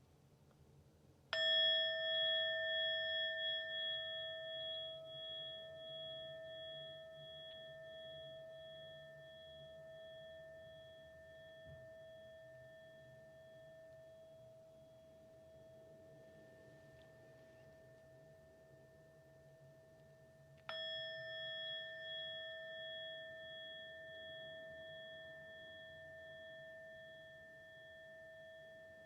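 Meditation bell struck twice, about twenty seconds apart, each strike ringing on with a clear, long, slowly fading tone: the two bells that mark the end of the meditation.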